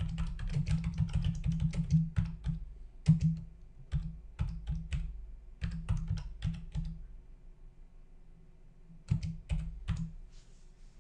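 Typing on a computer keyboard: rapid keystrokes at first, then slower and more spaced out, a pause of about two seconds, and a few last keystrokes near the end.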